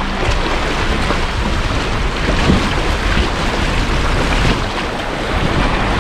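Water splashing and rushing as a vehicle drives through a shallow stream crossing, with the engine running low underneath.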